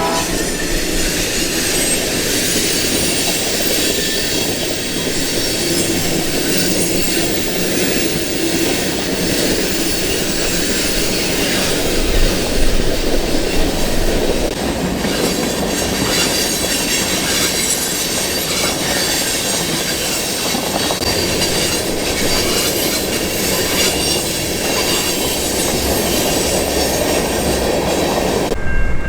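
Train cars rolling past at close range in a steady loud rumble, their wheels clattering over the rails and squealing on the curve.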